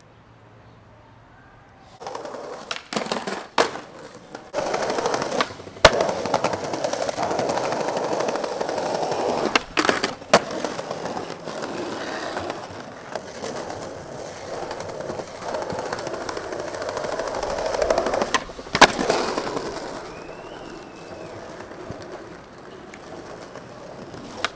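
Skateboard wheels rolling on rough concrete and pavement, a steady grinding rumble that starts about two seconds in and eases off near the end, broken by several sharp clacks of the board striking the ground.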